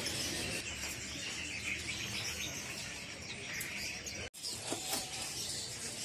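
Many caged songbirds chirping and twittering together in short, high calls. The sound cuts out for an instant about four seconds in.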